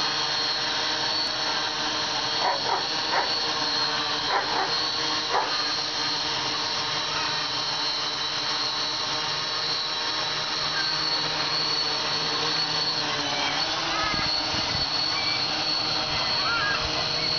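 A Y6 multicopter's six Sunnysky 2814 brushless motors, spinning 12-inch carbon propellers, running steadily as it hovers: a buzz of many steady tones, with a brief dip in pitch about fourteen seconds in.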